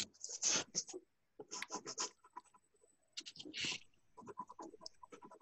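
Writing on paper: a pencil scratching in short, irregular strokes, heard through a video-call microphone that cuts in and out between them.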